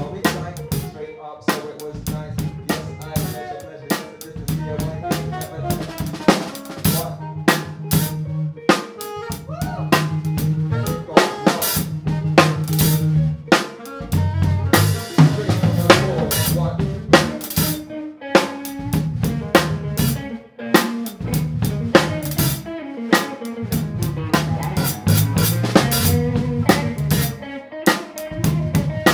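Live funk band grooving, heard from right at the drum kit: the drums are loudest, with crisp snare hits and rimshots over the kick drum. Low sustained bass notes and a saxophone play underneath.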